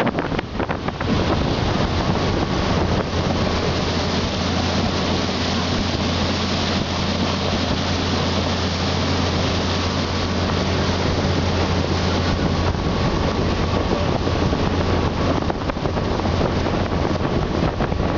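Motorboat engine running steadily at towing speed, a constant low drone under the rush of the churning wake. Wind buffets the microphone, most choppily in the first second and again near the end.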